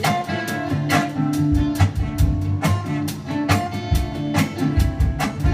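Instrumental break in a song: guitar and bass over a steady beat, with no singing.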